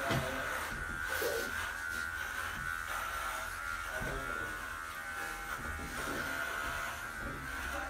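Electric pet hair clipper running with a steady buzz as it shaves a pug's coat.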